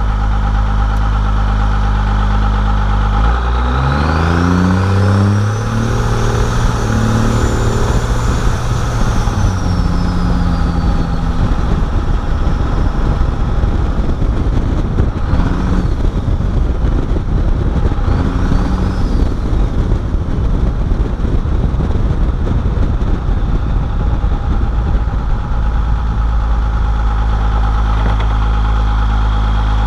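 First-generation 12-valve Cummins inline-six turbo diesel accelerating. The engine note climbs over a few seconds while the new turbo whistles up to a high pitch and falls away. Two shorter turbo whistles follow, then the engine settles into a steady run.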